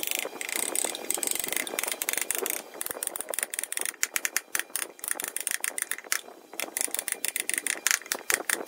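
Steel wood chisel pushed by hand through pine, paring off shavings: dense, irregular crackling clicks and scraping as the blade slices the wood fibres, with a short pause around six seconds in.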